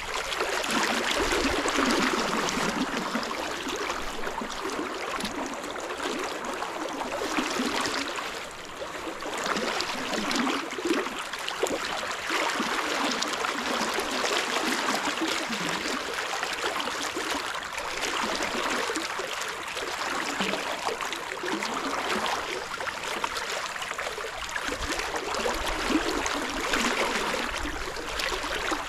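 Fast, rippling river current rushing steadily.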